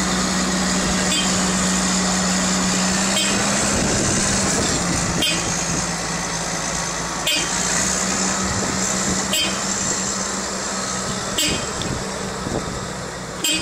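Huddig 1260B backhoe loader's diesel engine idling steadily with a constant hum, while a short chirp repeats about every two seconds.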